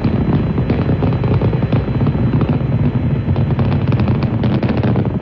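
Saturn V first-stage rocket engines in flight: a steady, loud rumble thick with ragged crackling.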